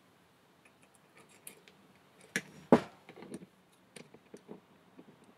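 Metal clicks and clinks of a spanner on the preload nut at the rear of an Emco Unimat SL lathe spindle, as the nut is tightened to hold the spindle together. There are two sharper knocks about halfway through, then lighter clicks until near the end.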